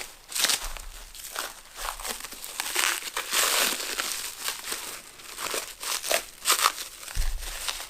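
Packaging crinkling and rustling in irregular bursts as it is handled and unwrapped.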